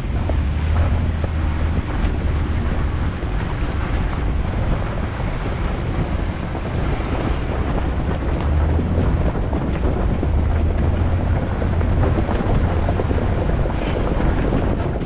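Jeep Wrangler driving along a rocky dirt trail, heard close to the front tyre: a steady rumble of the tyres rolling over loose rock and gravel, with wind buffeting the microphone.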